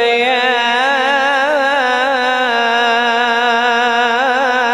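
A man reciting the Quran in melodic tajweed style into a microphone, drawing out one long, ornamented note between 'allamahu' and 'al-bayan', its pitch wavering and turning without a break.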